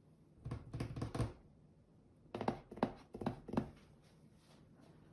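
A package being handled on a table: a few thumps about half a second in, then a quicker run of four or five sharp knocks a little past the middle.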